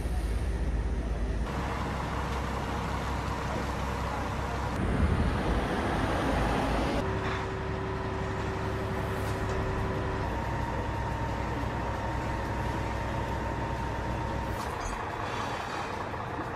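Heavy fire truck engine running steadily, most likely powering the aerial ladder, with the background shifting abruptly at several edits. A steady tone joins for about three seconds in the middle.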